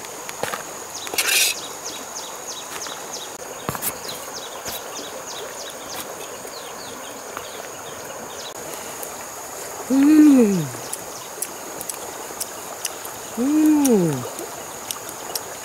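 Steady high insect drone over the faint rush of a river, with a few clicks and a short scrape early on and a run of quick ticks in the first half. Twice in the second half comes a short hum that rises and falls in pitch, louder than everything else.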